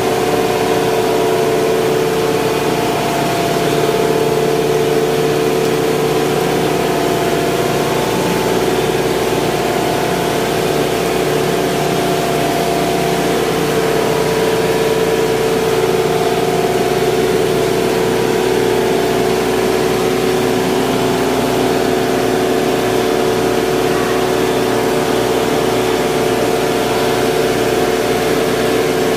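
Ice plant refrigeration machinery, electric motors and compressors, running steadily: a loud, constant machine hum with a held mid-pitched drone.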